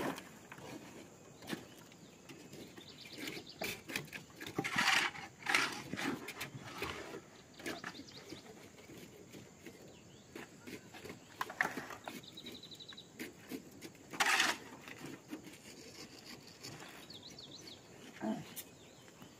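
Scattered knocks and a few short scrapes of hand concrete work, with metal pans and shovels, the two loudest scrapes about five seconds in and about fourteen seconds in. A few faint bird chirps, including one short high trill about twelve seconds in.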